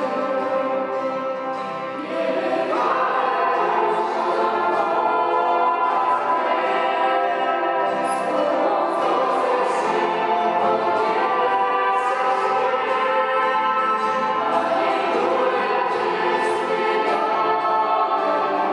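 A group of young female voices singing a worship song together into microphones, backed by trumpet and keyboard. The singing swells louder about three seconds in.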